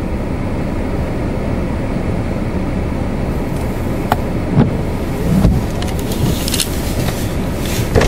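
Storm-force wind buffeting a car in a snow squall, heard from inside as a steady low rumble that swells now and then. A few sharp ticks, more of them in the second half, are snow and hail striking the car.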